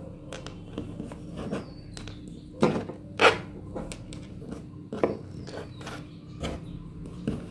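Soft handling noises from wool yarn being worked around pearl beads by hand: scattered rustles and light clicks, the loudest about three seconds in, over a steady low hum.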